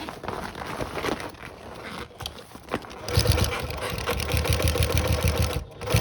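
Sewing machine stitching through layers of PVC, running fast and steady from about three seconds in and stopping just before the end; before that, fabric being handled and shifted under the needle.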